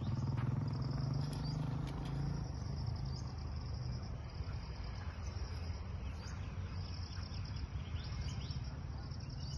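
Insects chirring in a pulsing high buzz that drops out briefly now and then, with a few short bird chirps near the end, over a steady low hum that fades after the first few seconds.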